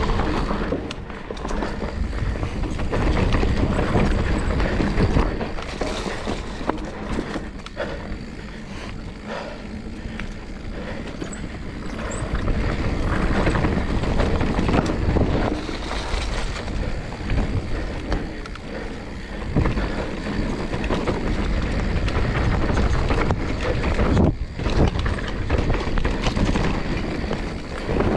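Mountain bike riding fast down a dirt singletrack: wind buffeting the camera's microphone over tyre noise, with frequent knocks and rattles from the bike over bumps.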